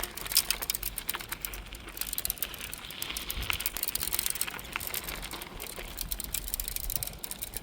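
Bicycle ridden along a path, with a dense run of light clicks and rattles from the freewheel and frame over a low steady rumble.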